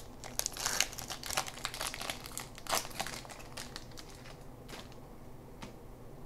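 Plastic wrapper of a 2006 Topps Opening Day baseball card pack crinkling as it is torn open and handled. The dense crackling lasts about three seconds, then thins to a few scattered crinkles.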